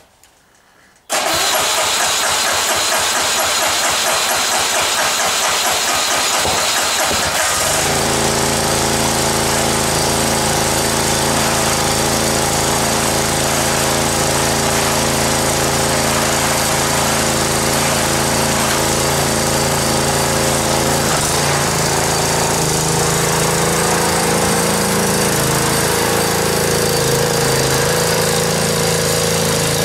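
The snow cart's small DOV petrol engine starting after a long lay-up: it fires about a second in, runs unevenly for several seconds, then settles into a steady run about eight seconds in. Near the end its pitch rises and falls as the cart drives off through the snow.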